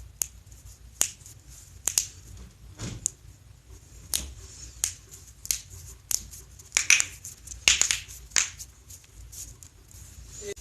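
Joints cracking during a self-adjustment: about a dozen sharp pops and clicks at irregular intervals, several close together in the second half.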